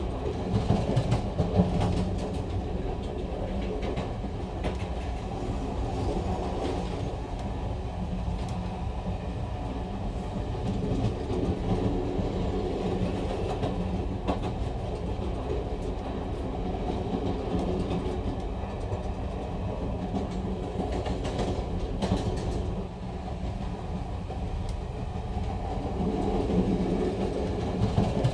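Train running along the track: a steady low rumble with scattered clicks of the wheels over the rails.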